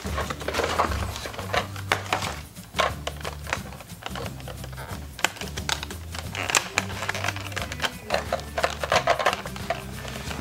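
Cardboard packaging and a hard plastic toy pirate ship being handled and pulled apart, giving irregular clicks, knocks and rustles, over background music with a bass line.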